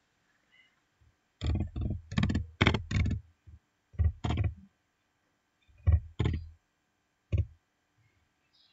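Computer keyboard typing in several short bursts of keystrokes with silent gaps between them. The longest run comes about one and a half to three seconds in.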